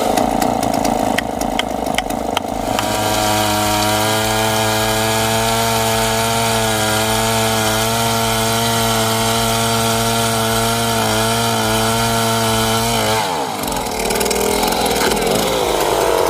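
Chainsaw engine running at high revs, a steady whine with a few sharp ticks in the first couple of seconds. About thirteen seconds in, the pitch falls sharply.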